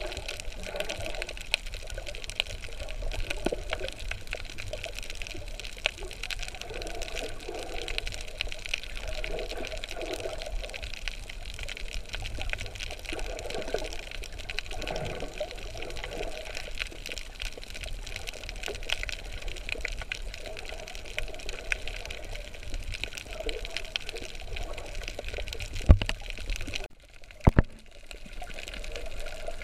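Water moving around a snorkeler's camera, with a steady fine crackle and uneven swishes. Two sharp knocks sound near the end.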